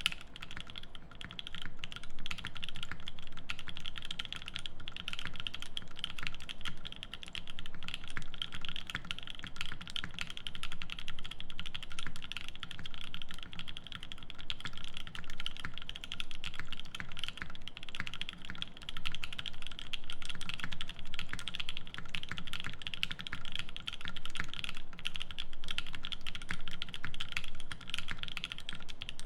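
Continuous fast typing on a Keycult No.2/65 brass-cased mechanical keyboard with lubed Creamsicle linear switches on a polycarbonate plate and GMK keycaps: a dense, steady stream of keystroke clicks and clacks.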